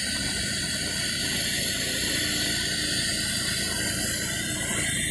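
Steady hiss of a pneumatic oil extractor sucking engine oil out through a probe hose pushed down the dipstick tube.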